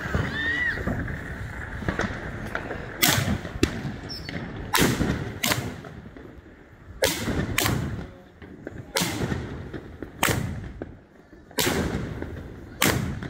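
Firehawk War of Willows 16-shot firework cake firing, with shots launching and breaking overhead. There are about ten sharp bangs, starting about three seconds in and coming every one to two seconds, some in quick pairs.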